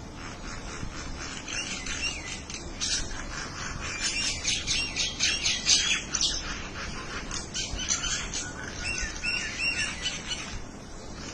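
Small birds chirping back and forth in quick runs of short, high notes, busiest around the middle.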